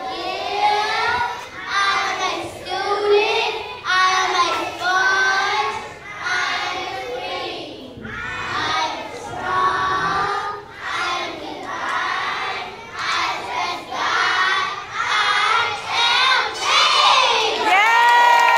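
A large group of preschool children reciting an affirmation poem in unison, shouting it out in short rhythmic phrases, ending on one long drawn-out word near the end.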